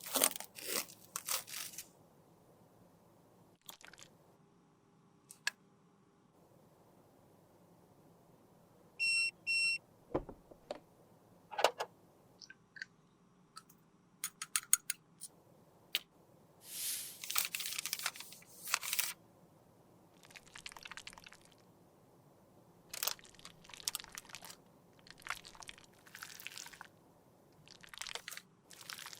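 Close-up handling sounds of cosmetics being repaired: sharp clicks and taps of plastic packaging and tools, with scraping and crinkling strokes, the longest about two-thirds of the way through. A brief electronic beep sounds about a third of the way in.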